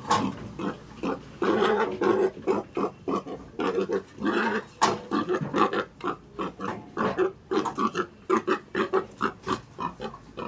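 Pigs grunting over and over, with a few longer calls in the first half and a fast run of short grunts in the second half.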